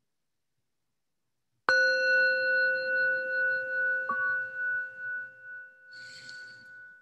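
Metal singing bowl struck once with a wooden striker about two seconds in, ringing with a low hum and several higher tones that fade slowly, wavering in loudness as they decay. It sounds as the signal that closes a guided meditation.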